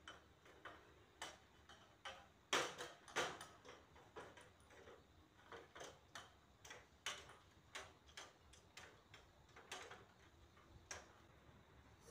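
Light, irregular knocks and clicks from an aluminium step ladder and a long-handled brush being handled and climbed, about one or two a second. The loudest few come around three seconds in.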